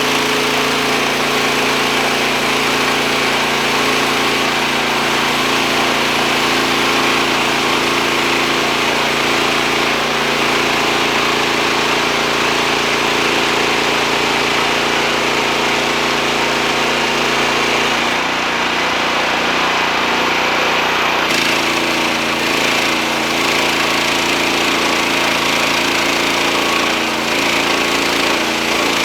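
Wood-Mizer LT40 portable band sawmill running steadily, its engine tone shifting for a few seconds about two-thirds of the way in.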